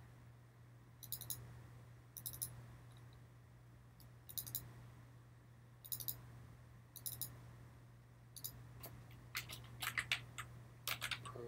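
Computer mouse button clicks, mostly in quick double-clicks spaced a second or more apart, then a faster run of clicks toward the end, over a faint steady hum.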